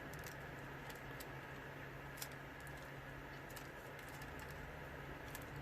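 Faint, scattered light clicks of small parts and tools being handled during a transformer repair, over a steady low hum.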